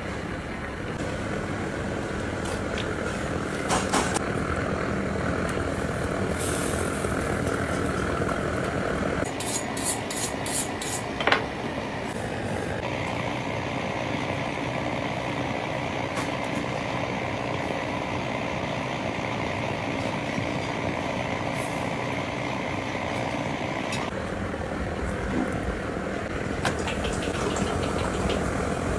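Steady mechanical running noise of commercial kitchen equipment, shifting abruptly in tone a few times. A quick run of sharp clicks comes about ten seconds in, followed by one louder sharp click.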